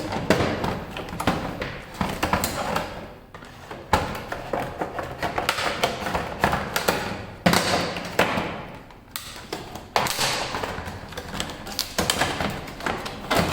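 Plastic packaging being peeled off a small plastic drill-bit case by hand: crinkling rustles with repeated clicks and taps as the case is handled.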